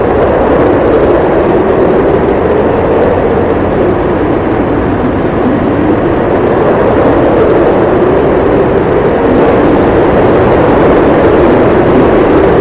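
Strong snowstorm wind howling and blowing snow: a loud, steady rush that swells slightly in the second half.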